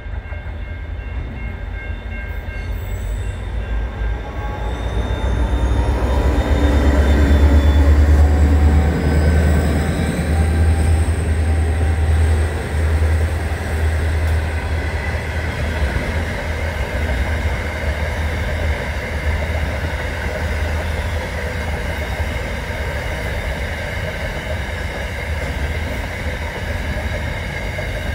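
Aurizon freight train passing: the diesel-electric locomotives' engine rumble builds to its loudest about eight seconds in, with a falling pitch as they go by. Then the freight wagons roll past with a steady rumble.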